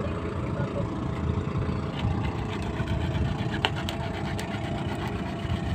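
A small engine idling steadily with a low rumble, with a few light clicks and knocks over it.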